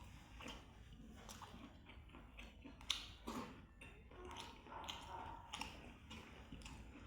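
A person chewing and biting food close to the microphone, with irregular wet mouth clicks and smacks, the sharpest one about three seconds in.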